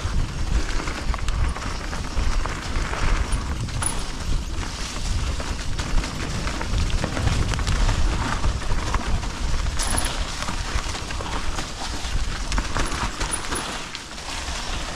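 Mountain bike riding down a dirt trail: steady wind rumble on the camera's microphone mixed with tyre noise and the bike rattling over the ground, with an occasional sharper knock.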